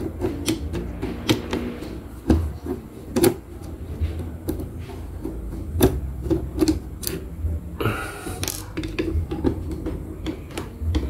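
Metal parts of a Yamato sewing machine being handled around the needle plate and feed dog: scattered sharp clicks and light taps, with a brief scraping about eight seconds in.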